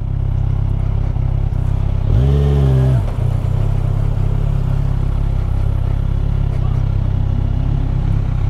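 Kawasaki Z1000SX's inline-four engine running at low speed, a steady low hum, with a short tone that rises and falls in pitch about two seconds in.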